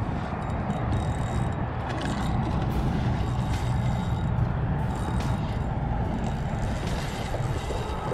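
Steady low wind rumble buffeting the microphone, with a few faint clicks as a spinning reel is cranked to bring in a hooked fish.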